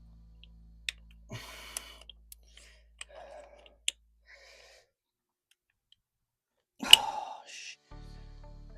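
Scattered sharp clicks and short rattles of hands handling engine parts while an ignition coil pack is fitted, with the loudest clatter about seven seconds in.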